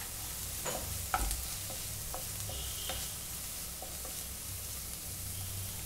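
Wooden spatula stirring shredded cabbage and green chillies in a coated frying pan, with a steady light sizzle of the vegetables frying in oil and a few soft clicks of the spatula against the pan.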